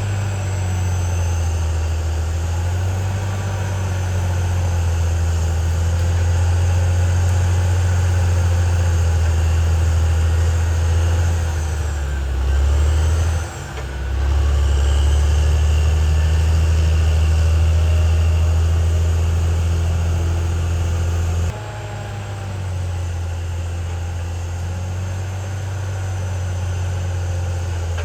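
Caterpillar D6R XL bulldozer's diesel engine running as a loud, steady low drone. The drone dips briefly partway through and drops in level suddenly about three-quarters of the way in.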